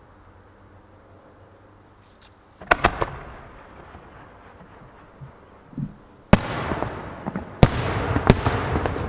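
Aerial firework shells bursting. A sharp bang comes about two and a half seconds in, then a few smaller pops, and three more bangs in the second half. Each bang leaves a long trail of noise that fades slowly.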